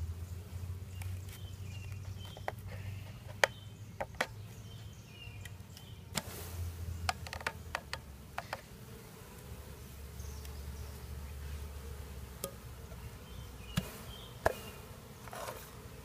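Honey bees from a package buzzing steadily, with several sharp clicks and knocks of the package and feeder can being handled.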